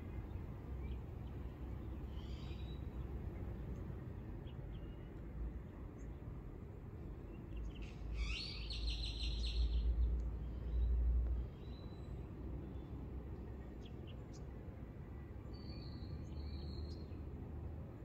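Birds calling over a steady low rumble of outdoor background noise: a short call about two seconds in, a rapid run of chirps about eight seconds in, and a couple of higher calls near the end. The rumble swells for a few seconds around the run of chirps.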